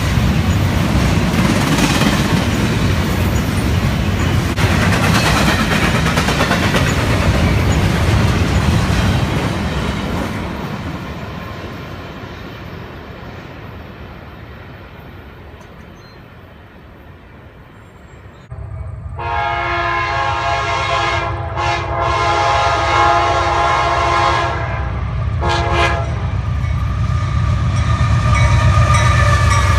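A double-stack container train rolls past with a rumble and wheel clatter that fade away. Then a CSX freight's diesel locomotives come up sounding a multi-chime air horn in several blasts with short breaks for about seven seconds, their engines rumbling louder near the end.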